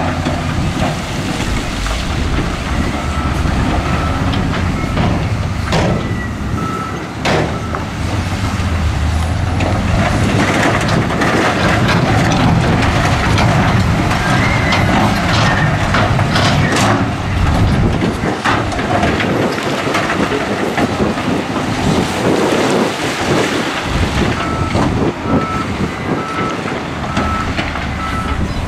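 Diesel wheel loaders and dump trucks working heavy, as rock and dirt tip from a raised dump-truck bed and a loader blade pushes the piles, with a few sharp knocks. A reversing beeper sounds about twice a second early on and again near the end.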